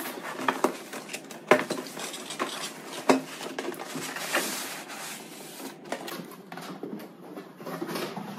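Cardboard box being slid up and off a polystyrene foam packing block: cardboard and foam rubbing and scraping, with sharp knocks about a second and a half and three seconds in, and a longer rubbing noise a little after four seconds.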